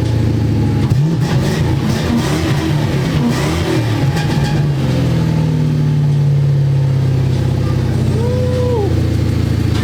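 Car engine running, revving briefly about a second in and then settling into a steady note.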